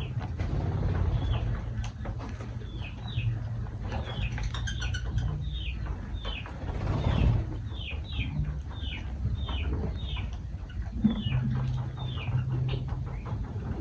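Lovebirds chirping: a run of short, high, falling chirps, about two a second, over a low steady hum.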